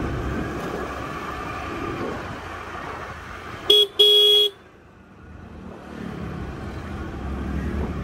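Vehicle horn sounding twice, a short toot and then a longer one of about half a second, about four seconds in. Steady wind and road rumble from riding runs before and after the horn.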